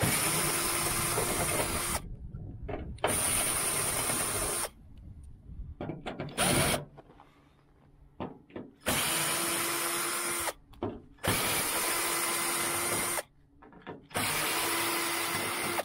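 Cordless drill backing out the sheet-metal screws that held a welded-in quarter-panel patch in place. About six short runs of a second or two each, each a steady whine, with brief pauses between screws.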